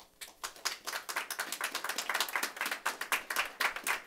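A small group applauding, many hands clapping unevenly.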